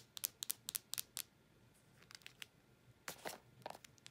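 Fingernails tapping and clicking on a plastic slime tub in quick, sharp clicks during the first second, then a few fainter clicks. About three seconds in there is a short scraping rattle as the tub's plastic screw lid is twisted off.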